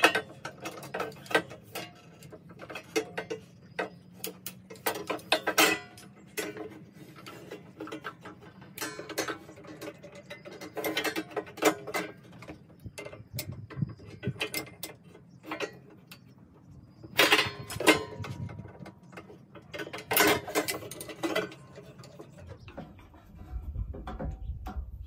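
Irregular clicking, rattling and knocking as Torx bolts are worked out of an air compressor's top cover with a hand tool, with the loose metal parts clattering in short clusters.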